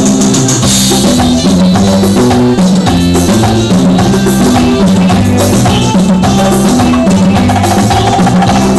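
Live band music without singing: electronic keyboard with a steady drum beat and a moving bass line, the instrumental break of a Sinhala song.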